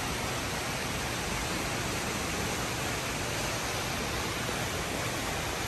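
Steady rush of falling water, an even hiss with no change in level.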